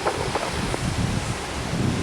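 Wind buffeting the microphone: a gusty, rumbling noise that rises and falls.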